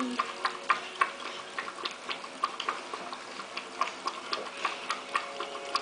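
Puppy feeding from a plastic tub on the floor: a quick run of small wet clicks from its tongue and mouth against the tub, about three or four a second.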